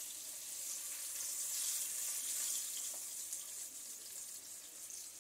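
Cornmeal-battered crappie fillets frying in hot oil in a skillet: a steady high sizzle, a little louder around the middle.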